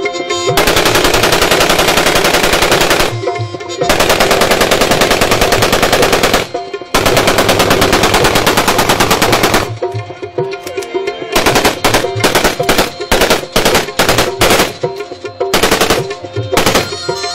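AK-47-type assault rifles firing on full automatic: three long bursts of a few seconds each, then a pause and a string of separate shots and short bursts. Folk music with tabla plays underneath.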